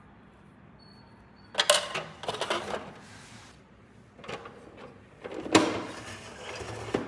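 Small plastic toy pieces being handled and set down: a few sharp clicks and short rattles, the first about a second and a half in and the loudest near the middle.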